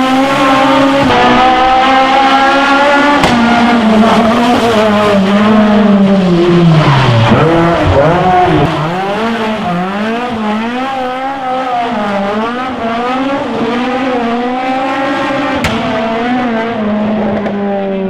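Fiat 131 rally car's four-cylinder engine at high revs as it passes close, the revs falling steeply about eight seconds in. It is then heard farther off, revving up and falling back over and over through gear changes as it accelerates away.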